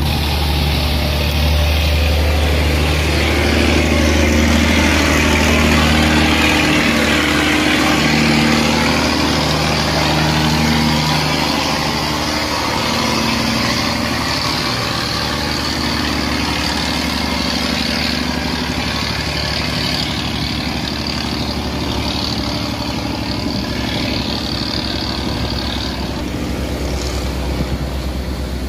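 Cargo barge's engine running hard as the barge pushes past, louder in the first half and then easing off, over a steady hiss of heavy rain and water.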